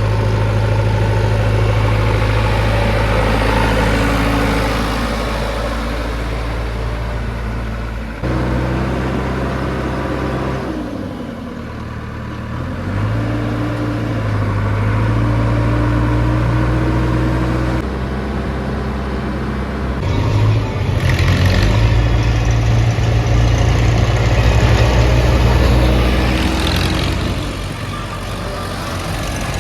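Diesel engine of a JCB 3DX backhoe loader running hard while digging and loading, its speed dropping about eleven seconds in and picking up again, with abrupt changes in the sound a few times.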